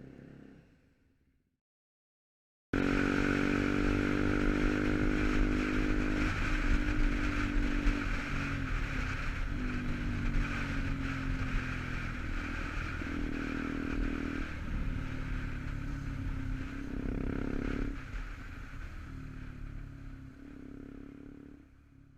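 KTM Duke 125's single-cylinder engine with an Arrow aftermarket exhaust, running while the bike is ridden, its note mostly steady with a few brief dips, over a steady rushing noise. It cuts in abruptly about three seconds in after a moment of silence and fades out near the end.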